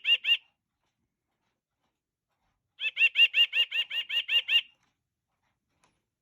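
Singing bird clock playing its white-breasted nuthatch song: a quick run of evenly repeated notes, about six a second. One run ends just after the start, and a second run of about a dozen notes lasts about two seconds from about three seconds in.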